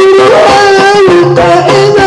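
A man singing sholawat into a microphone over a PA. He holds long, ornamented notes that waver in pitch, over regular hand-drum strokes and a low sustained accompaniment.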